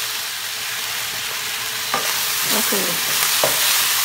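Chopped onions and garlic sizzling in olive oil in a nonstick skillet as they begin to caramelize. From about two seconds in there are a couple of light clicks from a plastic slotted spatula stirring them.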